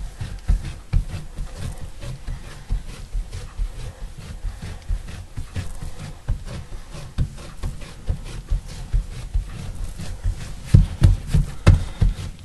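Floured hands patting sourdough biscuit dough flat on a cutting board: soft, irregular thumps a few times a second, heavier near the end.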